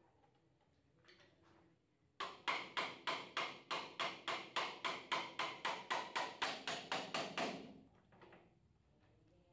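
Hammer beating on a metal rod set in a motorcycle's steering head: a quick, even run of about four blows a second for some five seconds, each with a short metallic ring, knocking the front fork assembly loose for removal.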